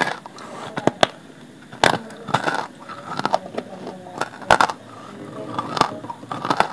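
Close-up chewing of hard dry clay chunks in the mouth, with a handful of sharp cracks as pieces break between the teeth and rough grinding crunches between them.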